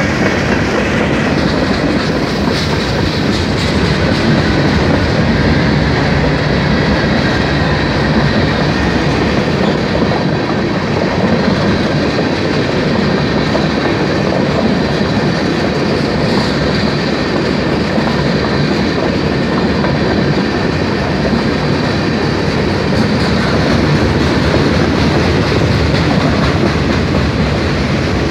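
Freight cars of a long mixed freight train, including tank cars and boxcars, rolling past close by: a steady, loud rumble and clatter of steel wheels on the rails.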